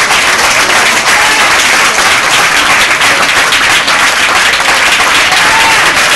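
Congregation applauding, a loud, dense, steady wash of hand clapping.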